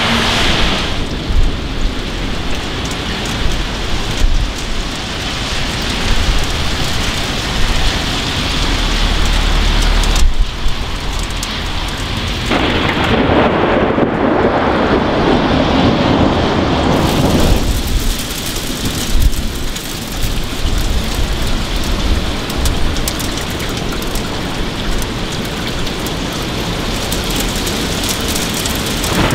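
Thunderstorm: steady rain with thunder rumbling. There is a loud peak about ten seconds in, followed by a louder surge of several seconds just after.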